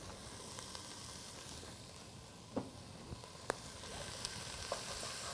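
Diced onions and red bell pepper sizzling in olive oil in a sauté pan, growing a little louder about four seconds in, with a few light clicks.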